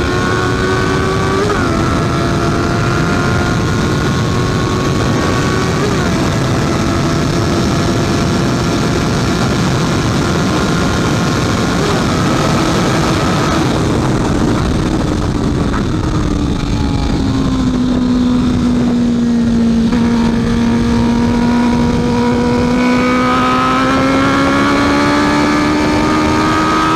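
Honda CB650F inline-four engine running at high revs under a loud rush of wind, with brief pitch steps like gear changes. Mid-way the engine note sinks as the bike slows, then rises again near the end as it accelerates.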